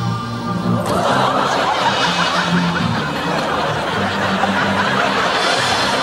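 Audience laughter breaking out suddenly about a second in and carrying on, over light background music.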